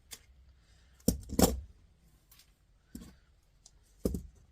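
Scattered clicks and knocks from a cassette deck's mechanism and its small brackets and screws being handled during dismantling: a pair just after one second, the loudest, then one at about three seconds and another near the end.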